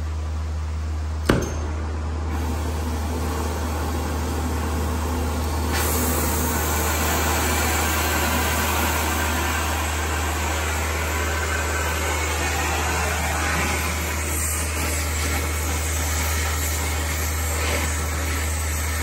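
Oxy-acetylene torch lit with a sharp pop about a second in, then its flame hissing, growing louder and fuller about six seconds in, as it heats a swollen nut on the front strut assembly to free it. A steady low hum runs underneath.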